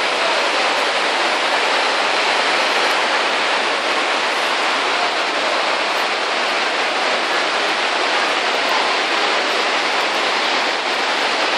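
Steady rushing roar of fast water, the river running through the gorge, carrying unchanged with no breaks.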